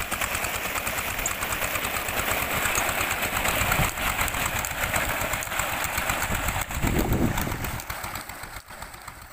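Single-cylinder Peter diesel engine running steadily, with a quick, even exhaust beat, as it drives a belt-driven tube well pump. Water splashes from the outlet pipe into the tank underneath. Near the end the sound fades away.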